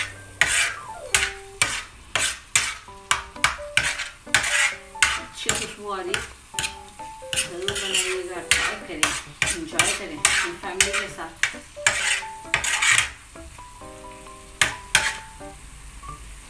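Metal spatula scraping and clattering on an iron tawa griddle as mutton liver masala is stirred and turned, about two strokes a second, over the steady sizzle of the food frying. The strokes thin out after about thirteen seconds, with two last scrapes near the end.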